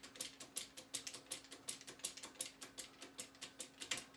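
Faint, regular mechanical ticking, several sharp clicks a second, over a steady low hum, with one louder click near the end.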